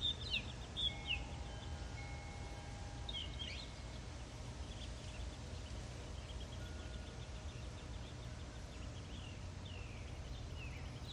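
Whistling ducks giving short, high, falling whistles, some in quick runs, over a steady low rumble of wind on the microphone.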